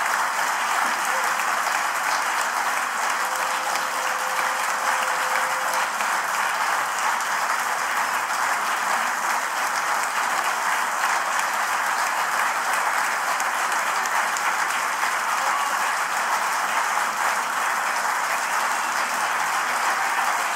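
A large concert audience applauding, dense, even clapping that holds steady throughout.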